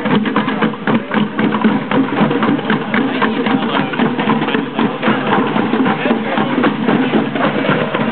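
Group of street drummers playing a dense, continuous beat, many strikes a second.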